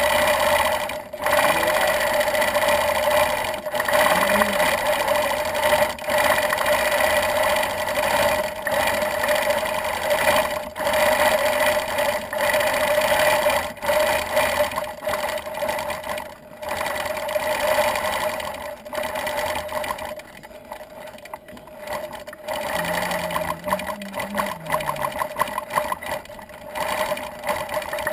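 Gammill longarm quilting machine running and stitching, with a steady mechanical sound that stops briefly a few times and goes quieter for a couple of seconds about two-thirds of the way in.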